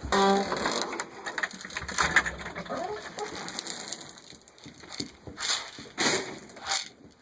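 Chickens calling in a coop, with irregular crunching and scuffing sounds and a few louder scrapes near the end.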